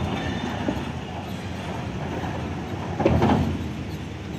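A railway workshop traverser carrying a coach body, rumbling steadily as it moves along its rails. A louder, rougher rumble comes about three seconds in.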